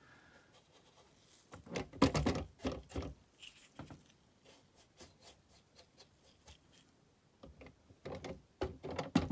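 Brush scrubbing and dabbing weathering chalk onto a plastic model boxcar, irregular short scratchy strokes. The strokes come in a louder burst about two seconds in, stay faint through the middle, and pick up again near the end.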